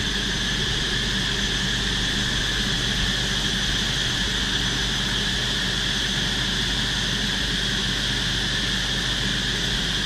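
Steady, even drone of a disturbed wild honeybee colony swarming as its nest is cut, with a high, constant whine over it.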